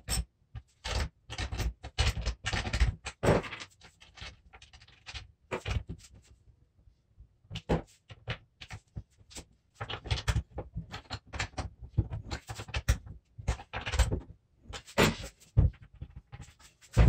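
Workshop work noises: a string of irregular short knocks and clicks from parts being handled and fastened, broken by brief silent gaps.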